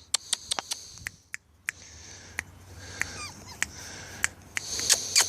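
Boxer puppies whining and squeaking in high, thin voices, with a short gliding squeak about three seconds in, over a scatter of sharp clicks.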